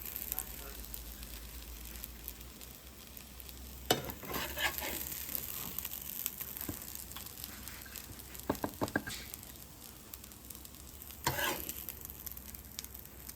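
Potato patties frying in hot lard in a pan, sizzling steadily. A few sharp knocks and clicks break in about four seconds in, in a quick cluster around nine seconds, and again near eleven seconds.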